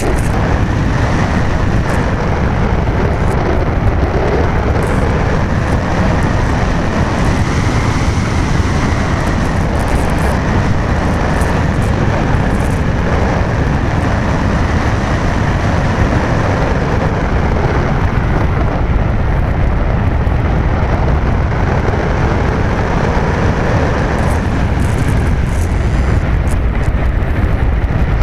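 Wind rushing over the microphone of a small on-board keychain camera strapped to a gliding Dream-Flight Alula, an unpowered RC flying wing. It is a loud, steady rumble with a faint high whistle that wavers slightly.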